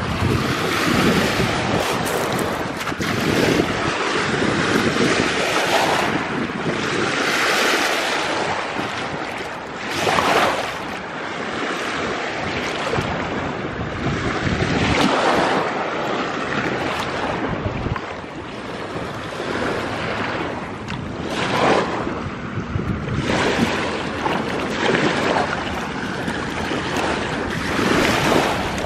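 Someone walking on a pebble beach and wading through shallow lake water, the water sloshing and splashing around the legs at each step, with wind buffeting the microphone.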